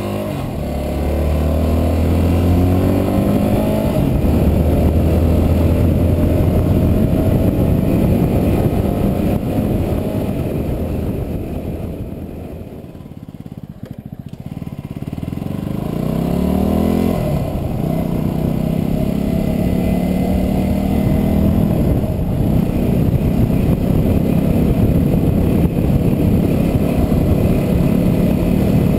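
Yamaha WR250R's single-cylinder four-stroke engine under way, pulling up through the gears with stepped rises in pitch. It eases off about halfway through, then accelerates again and holds a steady cruise.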